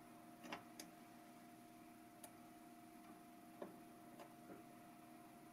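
Near silence: about half a dozen faint, scattered clicks of multimeter probe tips touching tube-socket pins, over a faint steady hum.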